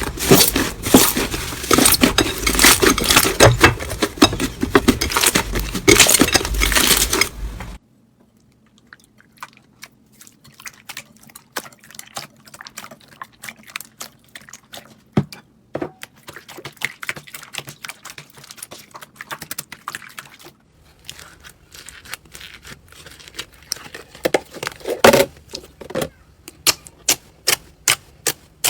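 Slime being squeezed and worked by hand: dense, loud crackling and popping for the first several seconds, then quieter scattered sticky clicks and pops that grow busier and louder near the end.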